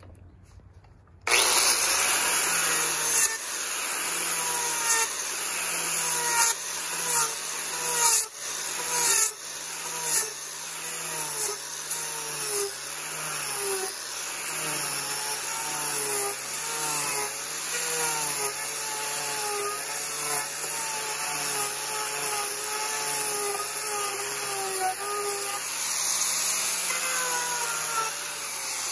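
Angle grinder fitted with an Arbortech carving disc, switched on a little over a second in, then running hard while carving out a cedar bowl. Its motor pitch sags and recovers again and again as the cutter bites into the wood, over a steady rasping of cut wood.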